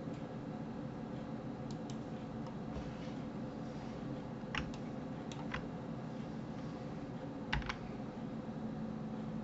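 Computer keyboard keys and mouse buttons clicked a few times, several in quick pairs, over a steady low hum of computer or room noise.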